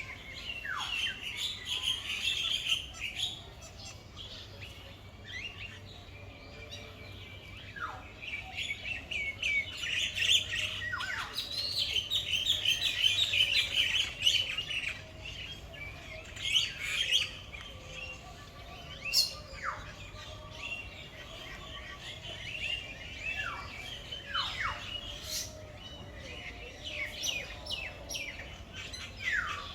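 Many birds chirping and calling together in dense, overlapping high chirps, with now and then a short falling whistle.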